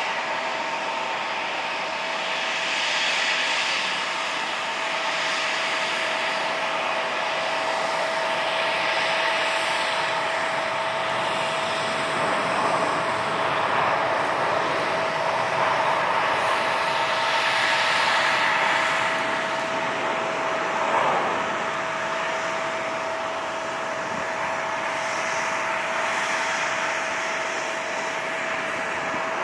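Jet airliner engines running: a steady whine over a rushing noise that swells and eases every few seconds.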